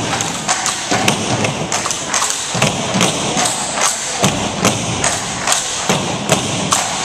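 Tinikling poles beaten in a steady rhythm, knocked on the wooden gym floor and against each other, about two to three sharp knocks a second.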